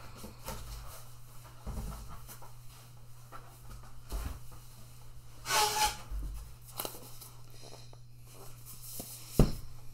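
Rummaging in a cardboard box and handling a boxed product: scattered rustles and knocks, then one sharp thump near the end as the box is set down on the table. A steady low hum runs underneath.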